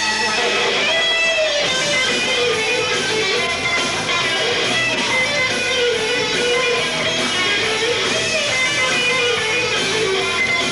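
Guitar music: a wavering melody line over strummed chords, playing steadily.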